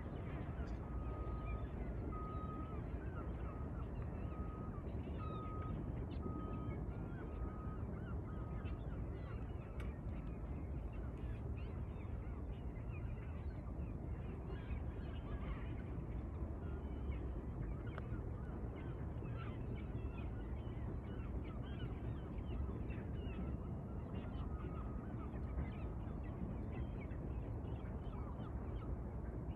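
Many birds calling over and over, with short irregular calls, above a steady low rumble. A faint beep repeats at one pitch, about once a second, for several seconds near the start and again later.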